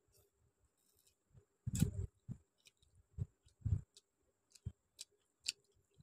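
Close-up chewing of chicken curry and rice: wet mouth clicks and smacks at irregular intervals, the loudest a little under two seconds in, after a quiet first second or so.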